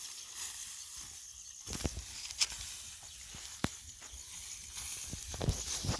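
Steady high-pitched outdoor hiss, with low rumbling handling noise from a couple of seconds in and a few sharp knocks scattered through.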